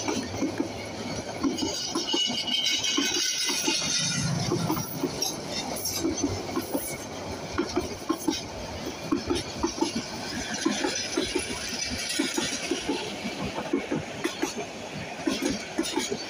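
Bangladesh Railway intercity passenger coaches rolling past close by, their wheels clicking over the rail joints in a steady rhythm of short clusters over the rumble of the train, with a stretch of high hiss a couple of seconds in.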